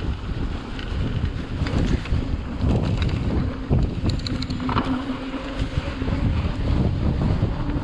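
Wind buffeting the microphone over the rumble of mountain-bike tyres rolling on a dirt trail, with scattered rattles and clicks from the bike. A steady low buzz joins about halfway through for a few seconds.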